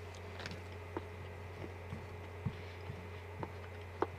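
Faint clicks of wooden chopsticks against a bowl while eating, about five light taps spread out, the sharpest near the end, over a steady low hum.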